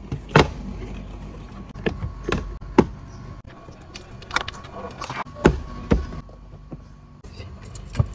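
Irregular sharp clicks and knocks, about a dozen, from hands working the plastic interior trim of a car's front pillar and the hard wire kit's cable and terminal.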